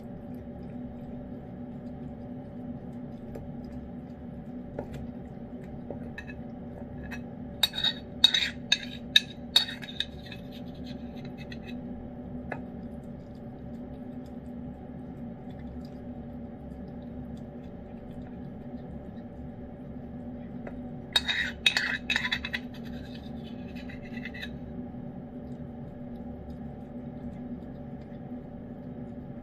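Metal spoon clinking and scraping against a ceramic dish of wet cat food in two bursts of sharp strikes, about eight seconds in and again about twenty-one seconds in, over a steady low hum.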